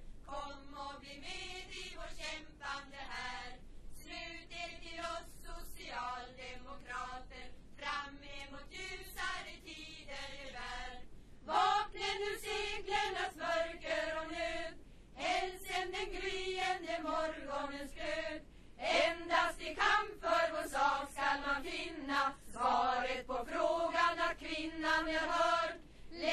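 A choir, mainly of women, singing a song in phrases with short breaths between them. It grows louder from about halfway on.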